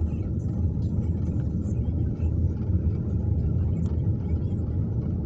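Steady low rumble of a car driving on a snow-covered road at about 40–55 km/h, heard from inside the cabin: tyre and engine noise.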